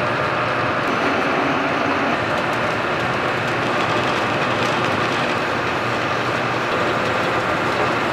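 Steady, even running noise of a laminating machine, its steel rollers and conveyor turning as foam sheet and release paper feed through.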